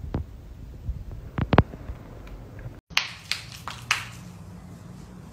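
A few scattered faint clicks, then after a brief drop-out a quick series of four sharp taps over about a second.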